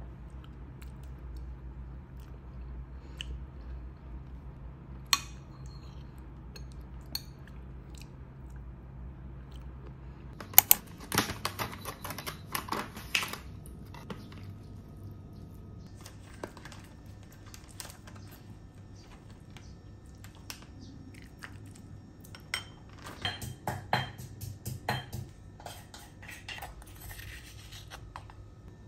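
Kitchen handling sounds: a metal spoon clinks in a ceramic bowl over a low steady hum, then come two bursts of sharp knocks and clatter from food preparation with a knife on a wooden cutting board, with scattered lighter clicks between them.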